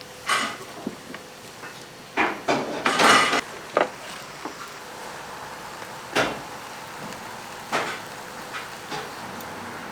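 Metal clanks and knocks of bungeoppang fish-bread molds and tools being handled at the grill: about seven sharp strikes spread over several seconds, with a longer scraping rattle about three seconds in.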